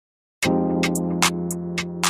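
Background music: silent for the first half-second, then an instrumental track starts with held chords and sharp percussive hits.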